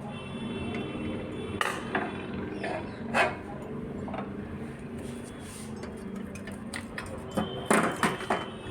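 Screwdriver and screws clinking and knocking against the inverter's metal parts as it is unscrewed and the board is freed. The clicks come at uneven intervals, with a louder cluster near the end, over a steady low hum.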